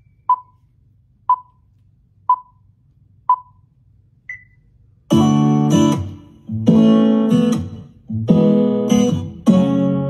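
Countdown timer beeps, one a second: four at one pitch, then a fifth higher. About five seconds in, strummed guitar music begins, the introduction to a Tahitian song.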